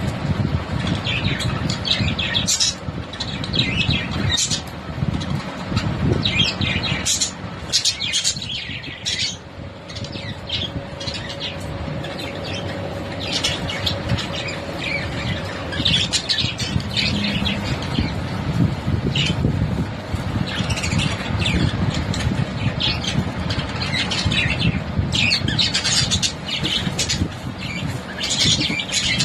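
A flock of pet parrots squawking and chirping in many short, shrill calls, with a lull about ten seconds in, over a steady low rumble.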